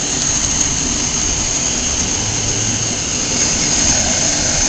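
Small motor of a homemade mini motorcycle running steadily as it is ridden, with a constant high-pitched whine over a low rumble.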